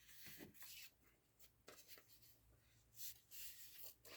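Faint rustling and scraping of paper scraps being handled and slid on a work surface, in short bursts about a second in and again near the end.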